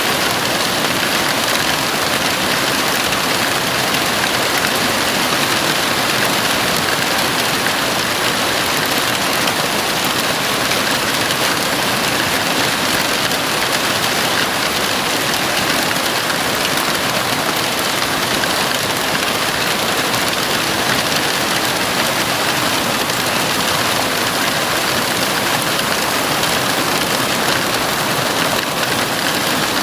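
Heavy rain falling on a house roof: a dense, steady hiss of drops with no breaks or distinct impacts.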